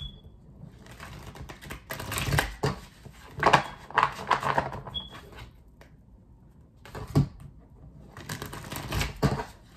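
Tarot cards being shuffled and handled, making bursts of quick clicking and flicking. One burst comes a couple of seconds in, a single snap follows around seven seconds, and another burst comes near the end.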